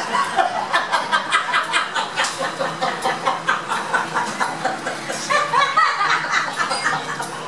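Two women laughing hard, a long run of quick repeated laughs.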